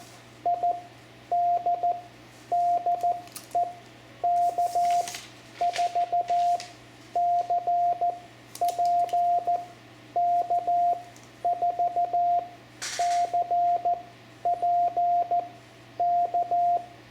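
CW sidetone from a Yaesu FT710 transceiver: Morse code sent as a steady mid-pitched tone keyed in dots and dashes, in word-length groups, answering a CQ call with the calling station's and the replying station's call signs. A low steady hum runs underneath, with a few brief clicks and a short rustle.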